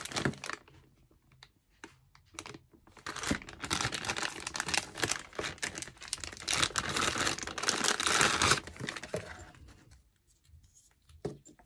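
Clear plastic bag crinkling and tearing as it is pulled open, a dense crackle that starts about three seconds in and stops about nine seconds in, with a few scattered rustles of handling before and after.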